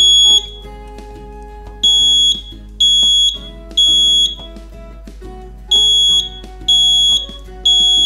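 Wireless photoelectric smoke detector's built-in buzzer sounding its test alarm, set off by holding its test button: loud, high, piercing beeps about one a second, in groups of three with a pause between groups. Quiet background music plays underneath.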